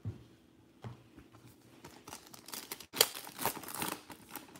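Foil wrapper of a Panini Revolution basketball card pack torn open and crinkled by hand. After a few soft knocks, the crackling starts about two seconds in and is loudest, with a sharp snap, about three seconds in.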